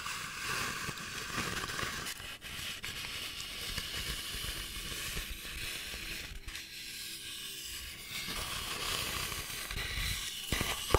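Fingernails scratching over the textured surface of a large speckled decorative Easter egg, a steady crackly hiss close to the microphone, with a few sharp clicks near the end.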